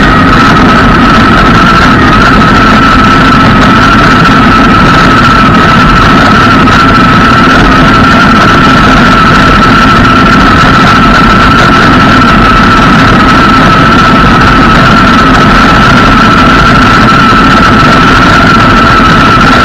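Stand-up scooter riding fast over asphalt, heard from a camera low on its deck: a loud, steady rumble of tyres and wind with a constant high whine running through it.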